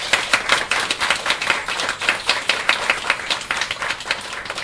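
A small seated audience applauding: many hands clapping densely and irregularly at a steady level.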